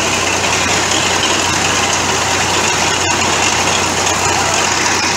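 Engine of the pile-boring rig's machinery running steadily at a constant speed.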